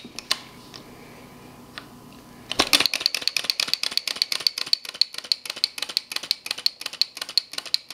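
Small flame eater (vacuum) engine with a pyrex glass cylinder: after a couple of seconds of low hiss and a few single clicks, it picks up and runs, clattering evenly at about eight clicks a second.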